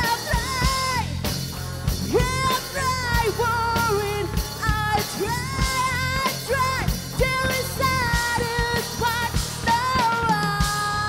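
Live rock band playing: electric guitar, bass and drum kit, with a woman singing into a microphone.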